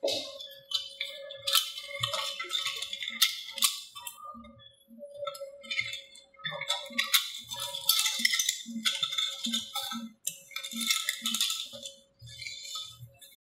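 Film leader and a clear plastic take-up reel on a Super 8 projector being handled by hand, with irregular rattling, crinkling and light knocks as the film is fitted and the reel turned. A steady hum from the projector runs underneath.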